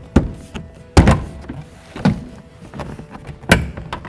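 Plastic interior door trim panel knocking against the door as it is worked into place: four dull thunks, the loudest about a second in.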